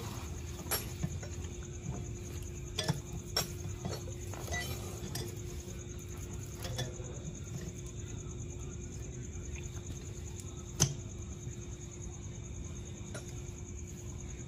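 Scattered light metallic clinks and taps, a handful in the first seven seconds and one sharper click about eleven seconds in, over a faint steady hum.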